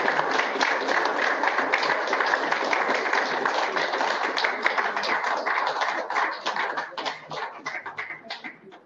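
Audience applauding, thinning to a few scattered claps near the end before stopping.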